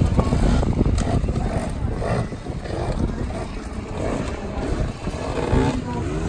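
Enduro dirt bike's engine running at low speed over an obstacle section, loudest in the first two seconds, with voices in the background.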